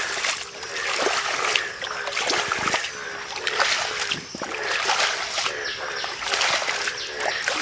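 Muddy water splashing and sloshing as a steel bowl and a plastic bowl repeatedly scoop it out of a shallow pit and fling it aside: hand-bailing the water away to expose the fish.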